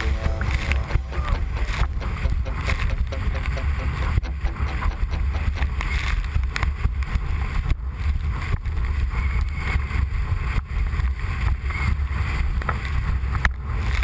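A windsurf board planing at speed over choppy water: heavy wind rumbling on the microphone, with the spray and the board slapping over the chop making constant irregular cracks and splashes.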